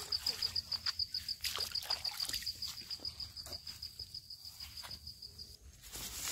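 High, evenly pulsed chirping, most likely a cricket or similar insect, which stops about three-quarters of a second before the end. Under it are irregular sharp clicks and smacks, likely from people eating by hand.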